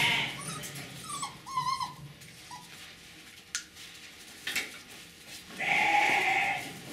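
Border collie puppies whining and yipping, with a couple of light knocks and a louder drawn-out cry near the end.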